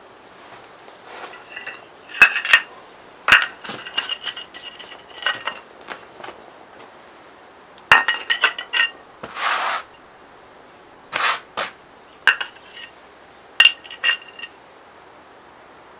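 Hard metal objects clinking and rattling together in irregular clusters, with short ringing tones, and a brief scrape about two-thirds of the way through.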